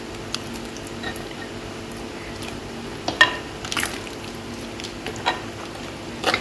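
A metal spoon stirring curd into a wet, thick mix in an earthenware pot, with soft squelching and a few sharp clicks of the spoon against the pot, the clearest a little past three seconds in. A faint steady hum runs underneath.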